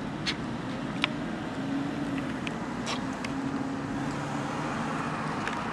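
Steady low hum of a motor vehicle engine running, its pitch wavering slightly, with a few light clicks.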